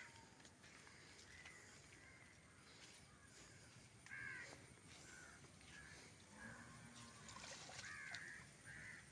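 Near silence with several faint, short bird calls a few seconds apart.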